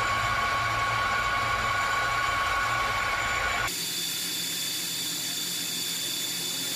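Metal lathe running while it cuts a white plastic workpiece: a steady machine whine with a low rumble, which changes abruptly a little past halfway to a higher, thinner whine without the rumble.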